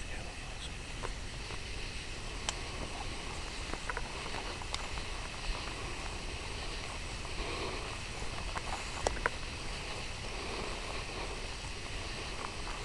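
Quiet night-time outdoor ambience: a steady hiss with scattered faint clicks and ticks.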